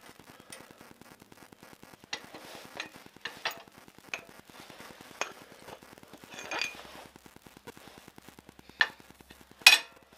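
Metal parts clinking and knocking as the steel steering stem and metal packers are handled on a shop press bed: a scatter of light clinks, with a louder sharp clank near the end.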